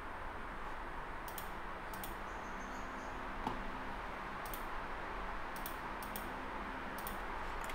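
About ten faint, irregular clicks of a computer mouse or keyboard over a steady low room hiss and hum.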